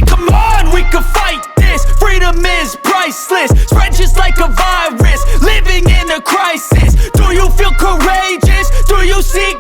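Hip-hop backing music with a heavy bass beat and rapped or sung vocal lines.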